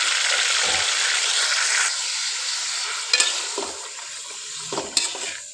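Yogurt-marinated chicken pieces sizzling in hot oil in a karahi. The sizzle is strongest for the first couple of seconds and then dies down. From about three seconds in, a spoon stirs the chicken and knocks and scrapes against the pan a few times.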